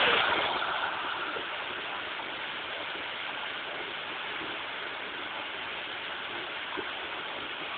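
Water rushing out through the breach of a burst pond dam, a steady roar-like rush, a little louder in the first moment before settling.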